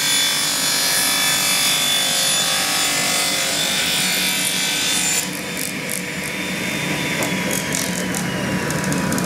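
Wadkin circular dimension saw ripping a length of timber fed with a push stick. About five seconds in the cut ends, the sound drops, and the blade's whine falls slowly in pitch as it runs down, with a few light clicks.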